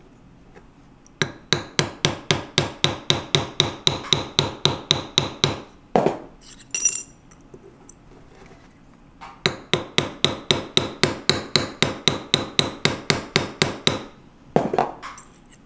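Rapid light hammer taps on a metal dapping punch, about five a second, flaring the end of a tube rivet against a metal bench block. The taps come in two runs of about five seconds each with a pause of about three seconds between them, and a few single louder knocks in the gaps.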